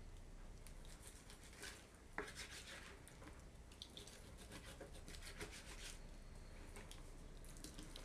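Faint knife work on raw chicken thigh against a plastic cutting board: soft scraping strokes of the blade, with a light knock about two seconds in.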